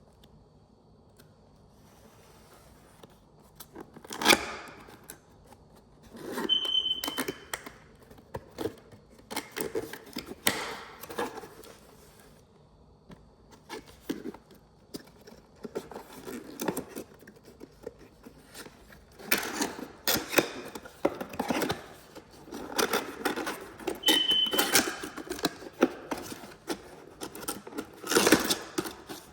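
Handling noise: irregular clicks, knocks and rustling from objects being moved and handled, with two brief high beeps, one a few seconds in and one near the end.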